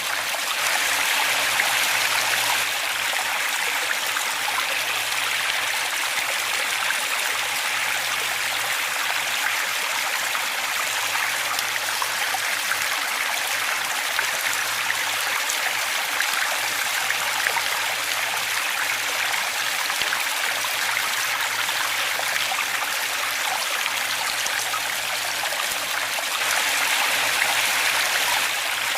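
Waterfall: a steady rush of falling, running water.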